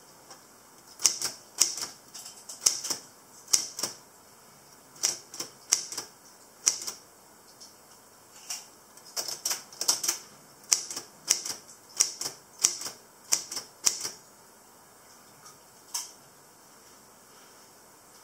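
Typing on a Brother typewriter: keys clacking in quick, irregular runs of strokes with short pauses between them, and a longer pause near the end broken by a single stroke.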